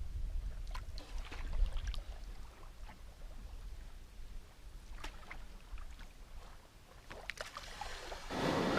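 Canoe being paddled in through shallow water, with scattered light paddle knocks and drips. Near the end comes a louder rushing noise.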